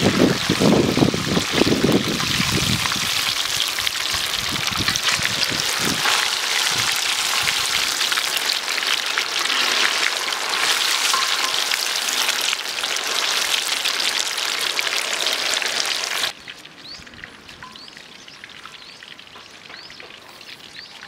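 Fish frying in hot oil, a steady crackling sizzle that cuts off suddenly about sixteen seconds in, leaving a much quieter hiss with a few faint short chirps.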